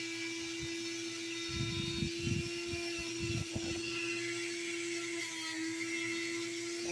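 Flex-shaft rotary tool spinning a green rubber polishing wheel at speed, a steady high whine as the wheel is worked against a hand-held opal; the pitch steps slightly higher about five seconds in. A few low thumps come in the middle.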